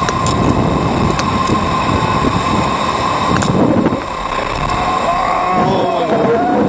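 Wind buffeting the microphone of a camera mounted on a SlingShot ride capsule as it swings through the air, a loud rushing that swells and eases, with a steady high tone and a few light clicks.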